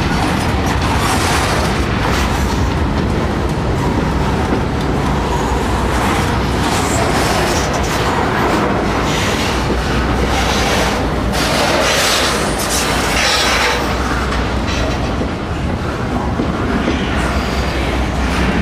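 CSX double-stack intermodal freight train's well cars rolling past at close range: steel wheels clacking over the rail joints over a steady low rumble, with repeated louder bursts of rattle and wheel noise.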